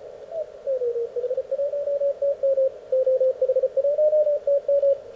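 Morse code (CW) signal received on an Elecraft K1 QRP transceiver on 20 metres: a single tone keyed on and off in dots and dashes. In the first second the tone slides down in pitch as the tuning knob is turned, then holds roughly steady. Under it is a faint, narrow band of receiver hiss.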